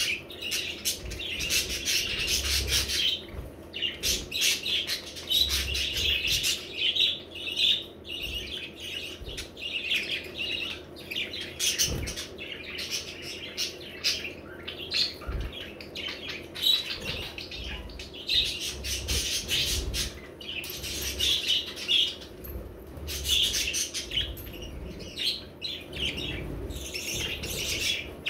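Several budgerigars chattering, a dense, steady run of quick high chirps and warbles with only brief pauses.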